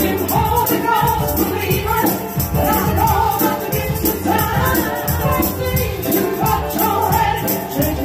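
Gospel song: singing voices over a band, with percussion keeping a steady beat.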